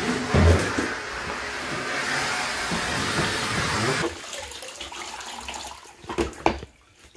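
Vacuum cleaner running with a steady hiss as its floor tool is pushed over a rug and tile floor, cutting off about four seconds in. Then a quieter stretch with a few knocks and clatters near the end as a spin mop is handled in its plastic bucket.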